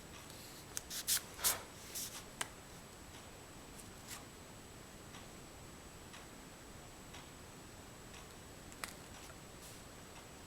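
Scratchy strokes of an oil pastel on paper: a quick run of them about a second in, then a few scattered single strokes. A faint, steady high-pitched whine sits underneath.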